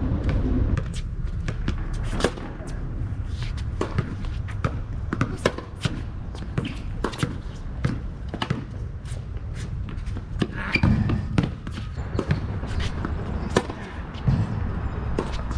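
Tennis balls struck by rackets and bouncing on a hard court during a baseline rally: a string of sharp pops and thuds, irregularly spaced, over a low outdoor rumble.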